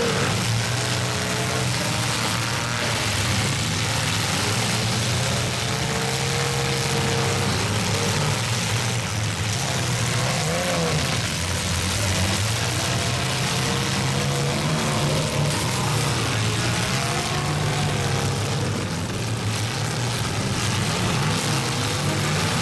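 Engines of several demolition-derby compact cars running and revving together, a steady low drone over broad mechanical noise, with pitch wavering as individual cars rev.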